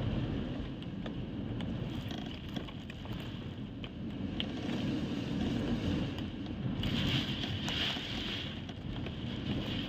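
Hurricane-force wind gusting and buffeting the microphone: a steady low rumble with a gusty hiss that swells about two thirds of the way through.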